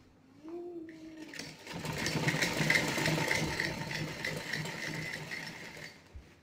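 Sewing machine stitching a fabric face mask: a fast, even mechanical clatter that starts about a second and a half in, runs for about four seconds and stops near the end.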